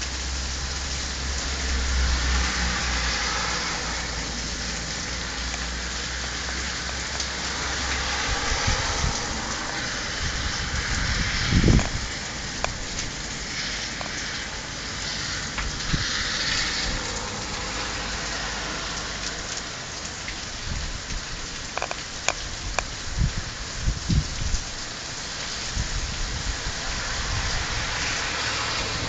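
Heavy rain falling steadily on grass, pavement and road, a continuous hiss. There is a low rumble in the first few seconds, a single thump about twelve seconds in, and scattered sharp ticks in the second half.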